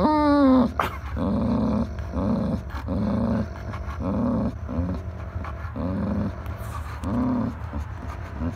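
Dog growling while tugging on a toy: one loud, drawn-out growl falling in pitch at the start, then a steady pulsing growl, about two rumbles a second.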